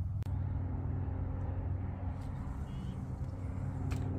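Steady low engine hum of a running motor, with a sharp click near the end and a faint bird chirp.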